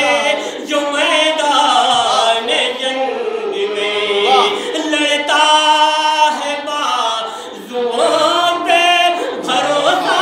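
A man singing a devotional poem unaccompanied into a microphone, in long, bending melodic phrases with a short break a little before the end.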